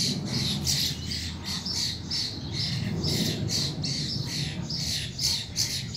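Birds giving short, harsh squawking calls over and over, several a second without a break, during a fight between birds.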